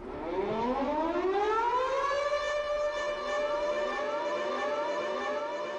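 Air-raid siren sound winding up in pitch over about two seconds and then holding a steady wail. A shorter rising whoop repeats about twice a second alongside it, as the intro of an electronic music track.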